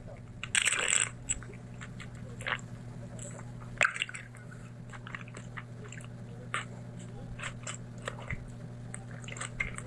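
Close-miked eating: a bite about half a second in, then chewing with many small, sharp, wet mouth clicks, one louder near four seconds, over a faint steady hum.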